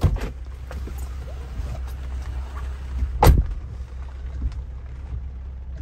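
Jeep driver's door shut with a single sharp slam about three seconds in, the loudest sound; a lighter clunk at the start as the door is opened. Underneath, a steady low rumble of the idling Jeep heard from inside the cabin.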